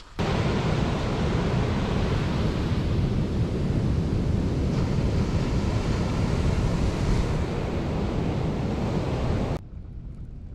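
Sea surf breaking and washing up a sandy beach, with wind buffeting the microphone; it cuts off suddenly near the end, leaving a quieter steady outdoor hiss.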